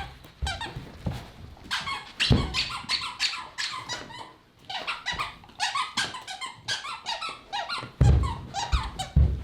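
Rubber squeaky dog toy squeaked over and over in quick, uneven bursts as a German Shepherd chews it, with a few low thumps.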